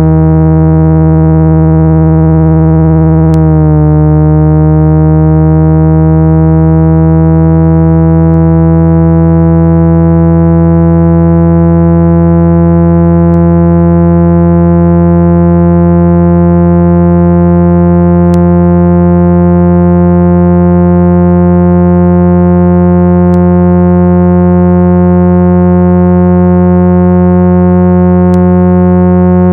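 Loud synthesized low tone with many overtones, a water-ejection speaker-cleaning sound made to vibrate a phone speaker's diaphragm and push water and dust out through the grille. The pitch dips briefly about three and a half seconds in, then slowly rises.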